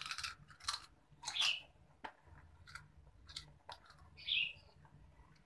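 Someone chewing snacks close to the microphone: three louder noisy bites in the first second and a half, then soft clicks and mouth smacks. A brief high-pitched sound about four seconds in.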